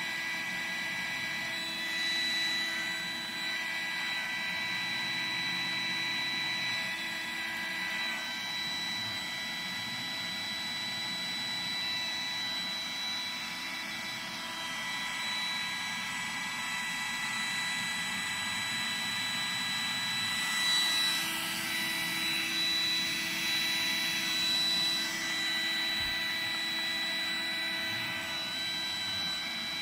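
Roomba robot vacuum running steadily with a high whine over its suction noise, unable to move itself across the carpet. About two-thirds of the way through it turns louder and harsher for a few seconds.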